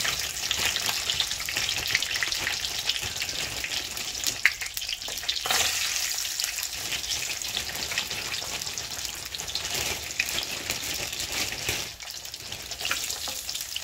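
Frozen chips frying in a pan of oil, a steady crackling sizzle. The oil is still a little cold, not yet fully hot for frying.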